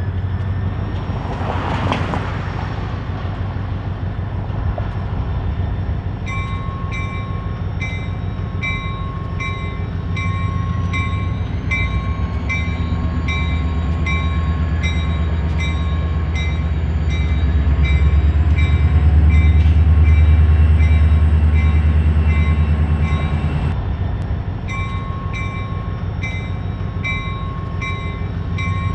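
EMD SD40T-2 diesel locomotive working hard under load with a deep, steady engine sound that swells loudest about two-thirds through, over a thin whine that slowly rises in pitch. A bell rings steadily, about one and a half strokes a second.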